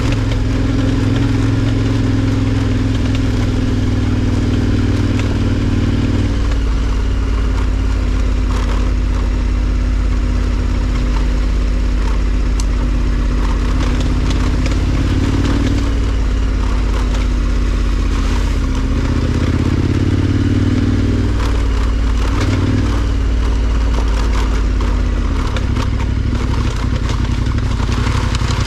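KTM 1290 Super Adventure R's V-twin engine running under changing throttle while riding a dirt track, its note shifting in pitch several times. Tyres roll over gravel and leaf litter, with scattered knocks of stones.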